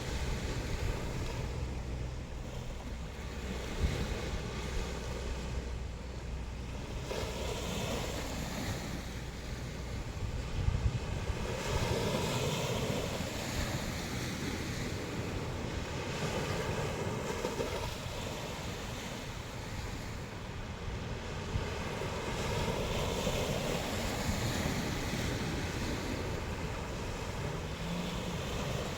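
Sea waves washing onto the shore, swelling and falling back every few seconds, with wind rumbling on the microphone and a couple of brief knocks.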